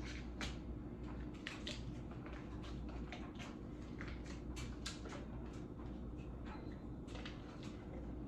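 Scattered soft crackles and clicks, a few a second, as a stick of butter is put into a warming pan, over a steady low hum.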